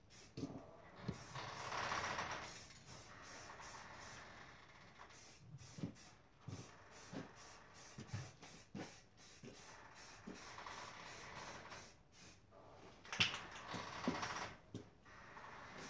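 Aerosol spray-paint can hissing in short bursts, about two seconds in and again near the end, with scattered light knocks in between.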